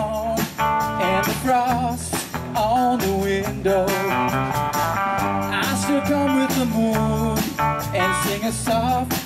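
Live band playing an instrumental passage between verses: electric guitars over bass and drums, with a bending, wavering melody line.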